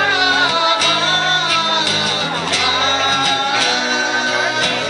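Live rock band playing: a singer holding long, wavering notes over guitar and drums with regular cymbal strikes.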